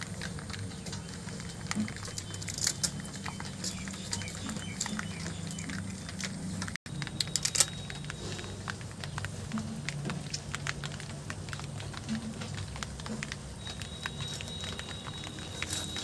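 Fish scales being scraped off against the blade of a hansua, a fixed curved cutting blade: a steady run of small, irregular scratchy clicks.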